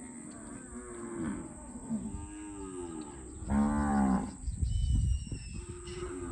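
Cattle mooing: a series of long, arching moos, the loudest about three and a half seconds in, followed by a low rumble.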